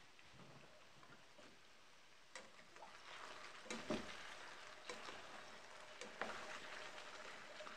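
Potato chunks frying in a pot with a faint sizzle. From about two seconds in, a plastic spatula stirs them, with scrapes and knocks against the pot and the sizzle growing louder.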